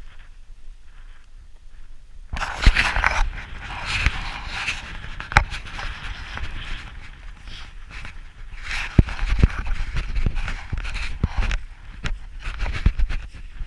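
Footsteps crunching and scraping over loose rock and scree, with irregular knocks, starting about two seconds in.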